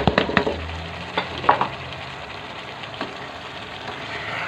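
Chicken and kachnar buds sizzling as they fry in a pot, with a spoon clattering against the pot as they are stirred: a quick run of sharp knocks in the first half-second, then a few scrapes and knocks.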